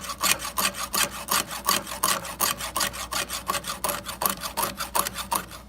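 Chainsaw chain being sharpened with a hand file held at a 30-degree angle: quick, even rasping file strokes, about five or six a second, that stop near the end.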